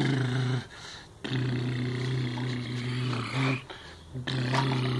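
A man's voice imitating a toy car's engine with a low, steady growling hum, held in three long stretches with short pauses for breath.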